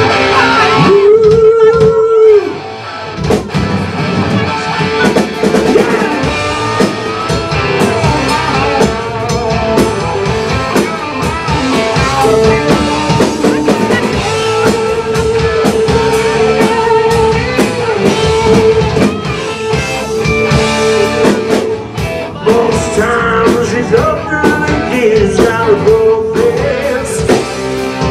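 A live rock band playing with electric guitars and a drum kit, a lead line holding long wavering notes over the beat.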